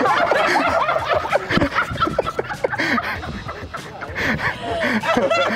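Several people laughing and chattering excitedly: the nervous laughter of passers-by who have just been startled by a fake snake.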